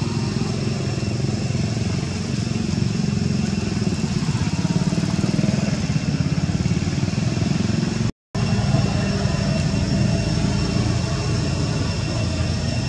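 A steady low engine-like drone with fine regular pulsing, and a faint steady high whine over it. It drops out for a moment about eight seconds in, then carries on unchanged.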